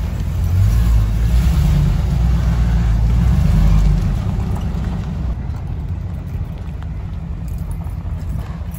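Vehicle driving, its engine and exhaust making a low, steady rumble that eases somewhat about four seconds in.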